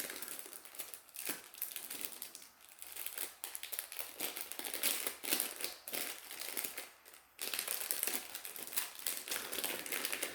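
Plastic packaging crinkling as it is handled and opened, an irregular crackle that breaks off briefly about seven seconds in.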